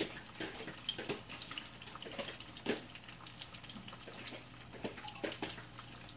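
Sparse, faint clicks and light knocks of cooking at a kitchen stove, over a low steady hum.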